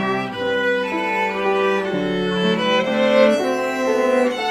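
A small ensemble of violins with piano accompaniment playing held, sustained notes that change every half second or so.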